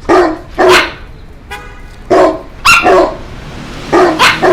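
A street dog barking loudly in short sharp barks, mostly in quick pairs, about seven in all.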